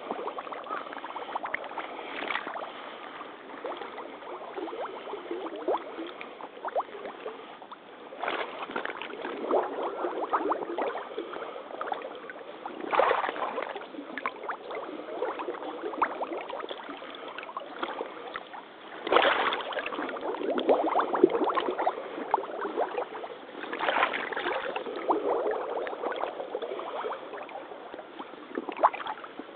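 Rubber crotch-high waders sloshing and splashing through shallow, muddy pond water with each step. The sound is irregular, with louder surges every few seconds.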